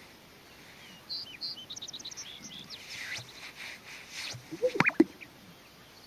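Male greater sage-grouse strutting: low, gliding coos and sharp pops from its inflated yellow air sacs about five seconds in, the loudest sounds. Quick, high chirps from small birds come earlier.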